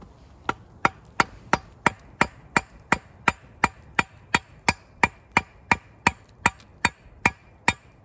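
Wood being chopped with a hand tool: about twenty quick, even blows, roughly three a second, starting about half a second in.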